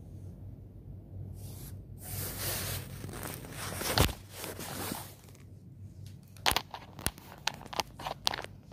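Handling noise from the phone that is filming being picked up and moved: a few seconds of rubbing and scraping with a sharp knock about four seconds in, then a run of sharp clicks and taps near the end.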